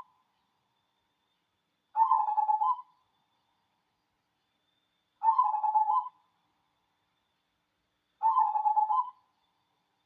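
Cemani zebra dove (perkutut) cooing: three separate stuttering coos of about a second each, spaced about three seconds apart.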